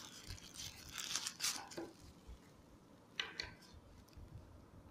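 Faint rustling and crinkling of packaging as a phone charger is taken out by hand: a few short bursts in the first second and a half, then one sharper crinkle a little past three seconds in.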